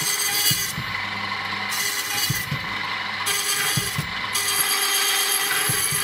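Mortice key-cutting machine running with a steady motor hum, its cutter grinding metal off the key blank in several bursts of harsh hiss as the levers are worked through the cuts.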